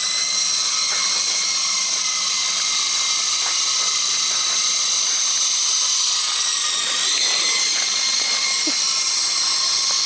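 Syma S37 remote control helicopter's electric motors and rotors whining steadily at a high pitch in flight, the pitch rising a little about seven seconds in as the throttle changes.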